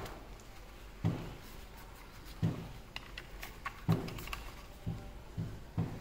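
Handling noise: soft thumps about once a second, coming a little faster near the end, with a cluster of small plastic clicks in the middle, as a Makita 18V lithium-ion battery is turned over in the hand.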